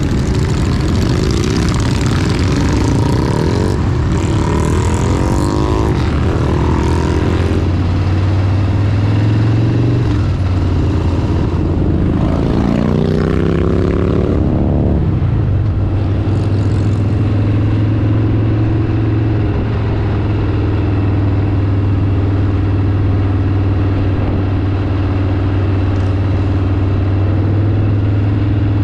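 Harley-Davidson V-twin motorcycle engine under way. Through the first half its pitch repeatedly rises and drops as it accelerates and shifts gears, with wind rush. It then settles into a steady cruise.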